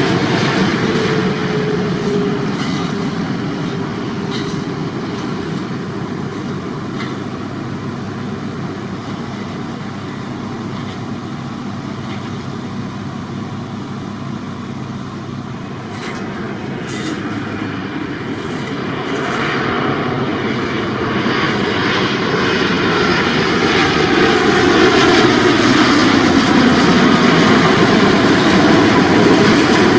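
Jet engines of a FedEx Boeing 777F (GE90 turbofans) on landing approach, passing low overhead with a falling pitch and fading as the plane moves away toward the runway. From a little past the middle, an EVA Air Boeing 787-9 on approach (GEnx turbofans) grows louder, its engine whine gliding down in pitch as it comes overhead.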